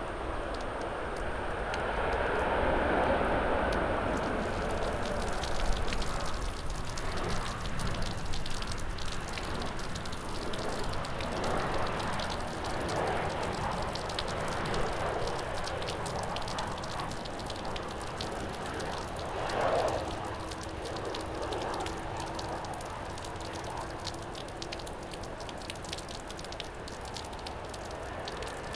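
Heavy rain falling, with fine drop ticks, over the rumble of jet airliner engines that swells and fades several times.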